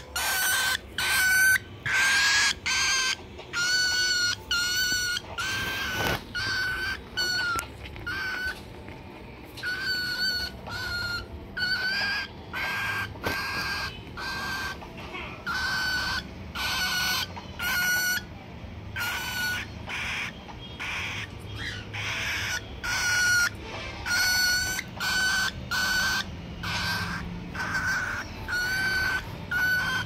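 Cockatiel calling over and over: a steady string of short, level-pitched chirps, about one to two a second.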